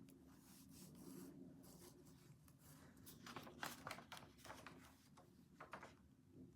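Faint scratching of a pen or pencil writing on paper in short, irregular strokes, busiest around the middle, over a steady low room hum.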